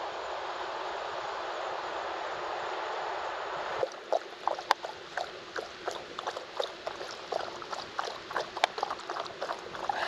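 A steady rush of moving water, then from about four seconds in, irregular splashing and lapping of water.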